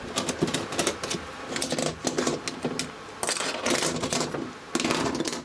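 Irregular clicking and clattering of small plastic parts being handled, with a louder rattling flurry about three seconds in and another near the end.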